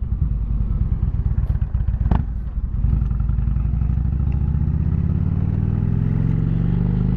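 Indian motorcycle's V-twin engine running with rapid, steady firing pulses; about three seconds in it grows louder and its pitch slowly climbs as the bike picks up revs. A brief click sounds about two seconds in.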